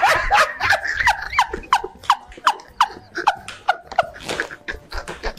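A woman laughing hard in a run of short, high, squeaky yelps that each drop in pitch, about three a second.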